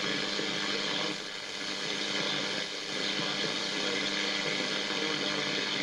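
Battery-powered Cathy three-band transistor radio tuned to medium wave (AM), giving a steady hiss of static with a low hum running under it.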